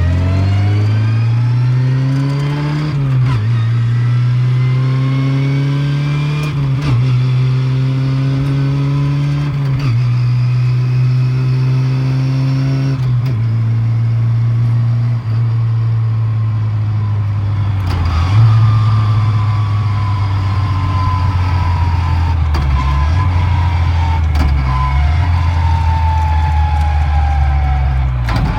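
Lada with a straight-cut sliding-mesh (dog-type) gearbox accelerating hard from inside the cabin: a gear whine and the engine rise in pitch through each gear, with four upshifts about three seconds apart. From about two-thirds of the way in, the car slows and the gearbox whine falls steadily in pitch.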